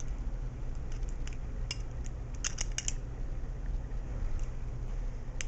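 Balisong butterfly knife being flipped through an opening with a wrist pass: a string of light metallic clicks and clacks as the handles swing and strike each other, bunched together a couple of seconds in and again at the end, over a faint steady low hum.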